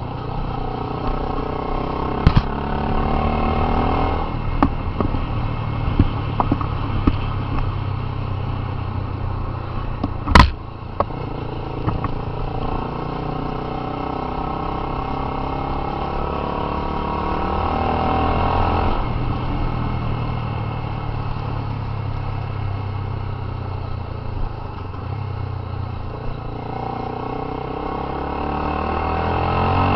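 Honda CB 300's single-cylinder engine running through an aftermarket Fortuna mini sport exhaust, its engine speed rising and falling several times and climbing again near the end. A single sharp, loud knock comes about a third of the way in, with a few lighter clicks before it.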